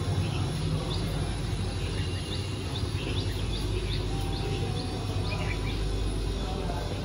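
Small birds chirping in short, repeated high notes over a steady low rumble of outdoor background noise.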